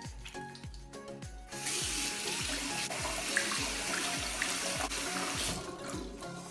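Bathroom sink mixer tap running as hands are rinsed under it: a steady rush of water that starts about one and a half seconds in and is shut off about four seconds later, under background music with a steady beat.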